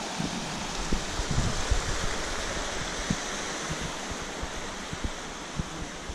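A small mountain stream trickling and splashing over rocks, a steady rushing that fades slightly toward the end, with a few soft footsteps on a dirt trail.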